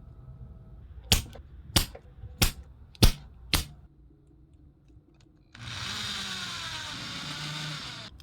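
Five sharp clicks about two-thirds of a second apart, then a few seconds of whirring hiss with falling tones in it that cuts off suddenly.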